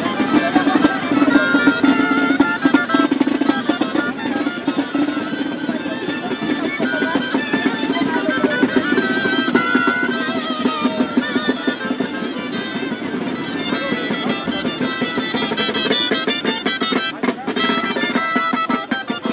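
Gaita navarra shawms, the Navarrese double-reed street pipes, playing a traditional festival tune with a wavering melody.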